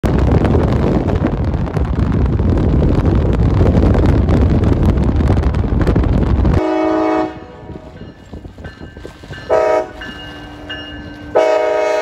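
Wind buffeting the microphone with a loud rumble for the first six and a half seconds. Then a CSX GP38-3 locomotive's Nathan K5LA five-chime air horn sounds: a brief blast, a short toot about three seconds later, and a long blast starting near the end.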